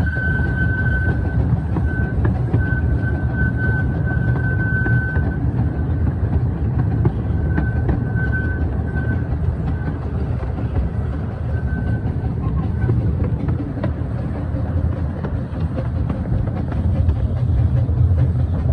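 Miniature steam train running on its track, heard from a passenger car behind the locomotive: a steady rumble of wheels and running gear. A thin high squeal comes and goes during the first half.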